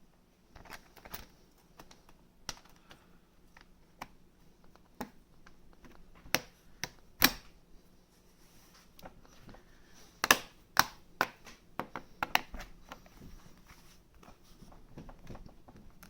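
Irregular clicks and taps of a Dell XPS 12 9250 laptop's housing pieces being handled and fitted back together, with a few sharper snaps among them.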